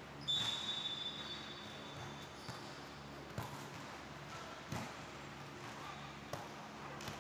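A referee's whistle blown once in a shrill, steady blast of about two seconds, signalling the serve, followed by several sharp slaps of hands on a volleyball as the rally is played.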